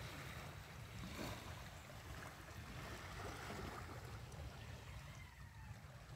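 Faint flowing water of a shallow, clear stream running over stones, with a steady low rumble underneath.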